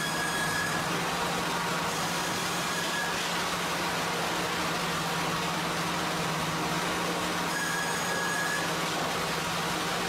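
Sawmill machinery running steadily: a constant mechanical hum and noise from the saw line and roller conveyor, with brief high whines about three times.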